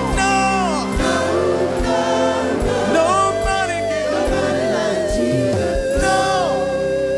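Live gospel praise-and-worship music: a lead singer and backing vocalists singing over a band of keyboards, bass guitar and drums, with a long held note from about three seconds in.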